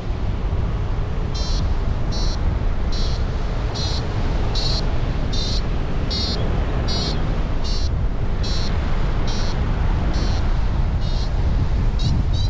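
Paragliding variometer beeping over loud wind noise on the microphone, starting about a second and a half in at roughly one short high beep every 0.8 s. Near the end the beeps come quicker and rise in pitch, the vario's signal of a stronger climb in lift.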